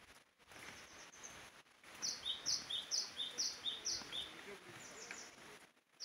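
A small songbird singing a quick repeated two-note phrase, a high note followed by a lower one, about twice a second, starting about two seconds in.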